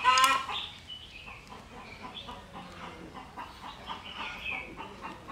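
Bird calls: one loud, harsh call of about half a second right at the start, then many short, fainter calls scattered through the rest.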